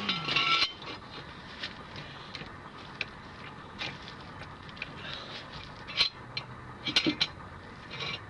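Metal jack stand clinking and scraping as it is set under the car, with scattered short knocks; the sharpest come about six and seven seconds in.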